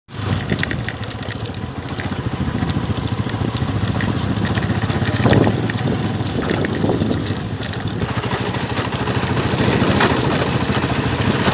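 Motorcycle engine running steadily while riding along a wet brick road, louder for a moment about five seconds in.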